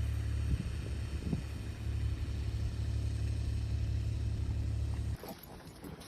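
A steady low rumble that cuts off abruptly about five seconds in, leaving a much quieter background.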